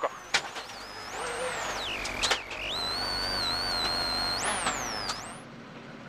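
Rally car at speed with a high whine that rises and falls as it accelerates and lifts, broken by a few sharp cracks. About five seconds in it cuts suddenly to a quieter, steady engine hum.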